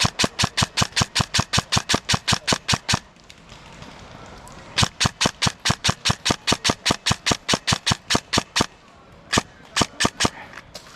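Airsoft gun firing full-auto, about eight shots a second. There is a burst of about three seconds, a pause of nearly two seconds, a second burst of about four seconds, then a few single shots near the end.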